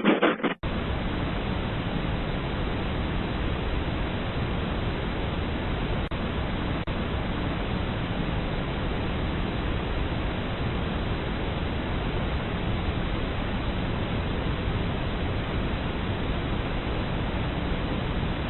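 Steady, even hiss of noise with nothing standing out in it. It sets in abruptly about half a second in and holds one level throughout.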